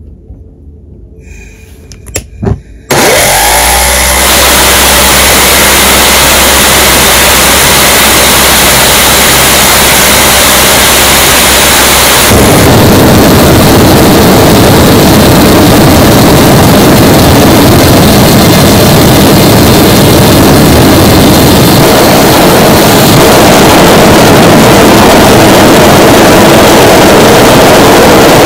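Fuel-converted F135 model jet engine lighting up and running: after a few sharp clicks, a loud, steady rushing noise starts abruptly about three seconds in. It grows louder in steps about twelve and twenty-three seconds in as the turbine speeds up on its own fuel.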